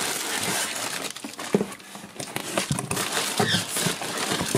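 Clear plastic garment bags crinkling and cardboard box flaps rustling and scraping as clothing is lifted out of a shipping box, with a brief faint squeak about three and a half seconds in.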